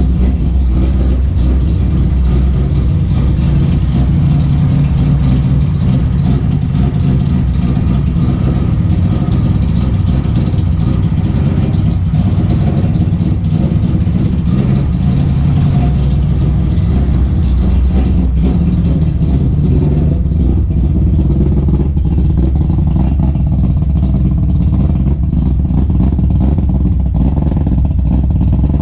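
Mazda 20B three-rotor rotary engine running steadily while warming up, with no revving.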